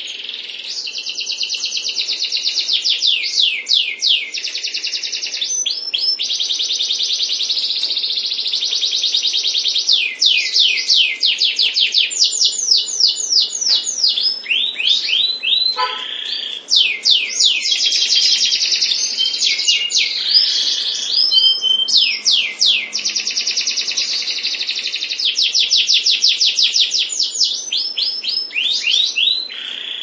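Domestic canary singing loudly and almost without pause: a long, high-pitched song made of fast trills and rolls of rapidly repeated notes, changing from one run of notes to the next every second or two.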